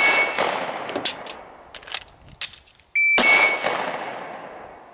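Two shots from a 9mm Glock-based PDW about three seconds apart, each followed by a long ringing decay. Between them come a few quick clicks and clacks of an emergency magazine reload.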